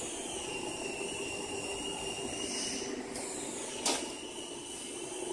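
Stainless steel V blender running, its drive motor and gearbox giving a steady hum with a faint high whine as the V-shaped vessel turns. A single sharp click about four seconds in.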